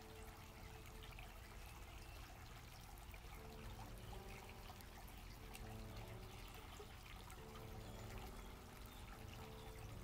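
Small creek trickling over mossy rocks, a faint, steady running-water sound.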